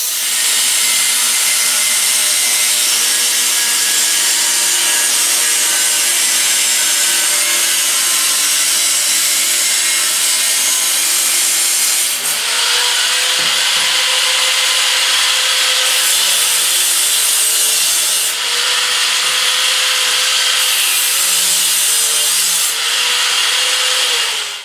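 Angle grinder cutting through 16-gauge hot-rolled steel sheet: a steady high whine over a harsh grinding hiss. In the second half the motor's pitch sags and recovers several times as the wheel bites into the cut.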